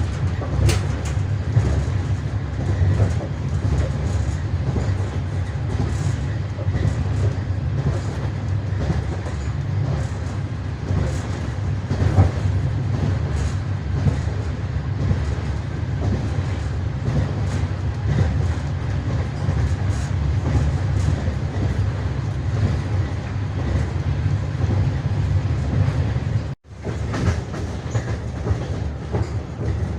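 Passenger train rolling along at speed: a steady low rumble with the clickety-clack of wheels over the rail joints. Near the end the sound breaks off for an instant and comes back a little quieter.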